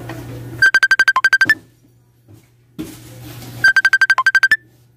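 Electronic beeping: a quick run of about a dozen short, identical high beeps, with one lower beep near the middle and a slightly higher one at the end. The same pattern repeats about three seconds later, like a ringtone or alert cycling.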